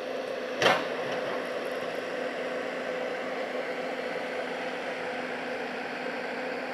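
Loader's diesel engine running steadily, a constant hum over a hiss of noise, with one short knock a little under a second in.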